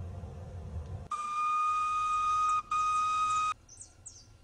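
Steam locomotive whistle blown twice, one long blast and then a shorter one, on a single steady pitch. A low rumble before it cuts off as the whistle starts, and faint bird chirps follow the second blast.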